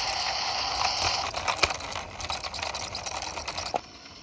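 Toy double-decker bus being pushed along a concrete ledge: a steady whirr gives way to rapid clicking and ticking from its wheels and gears, which cuts off suddenly near the end.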